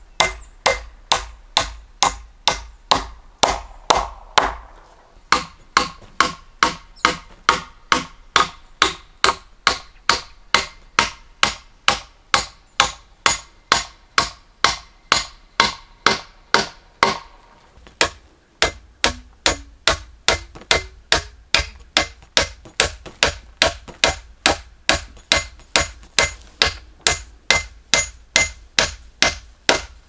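Hammer blows on wood in a steady rhythm, about two strikes a second, as the log crossbeam is fixed onto its post. There are two brief pauses.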